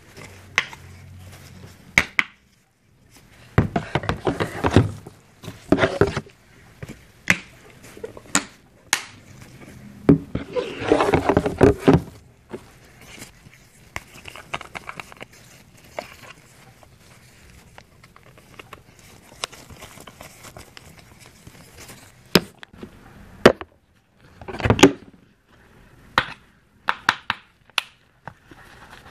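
Plastic bottles and caps handled on a countertop by gloved hands: scattered clicks, taps and knocks as bottles are picked up, set down and uncapped, with a few longer bursts of rustling and rattling.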